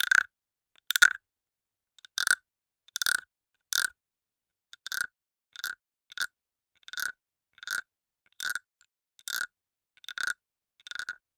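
Small wooden frog guiro croaking: a stick scraped along its ridged back gives a short rasping ribbit, repeated about every three-quarters of a second, some fourteen times.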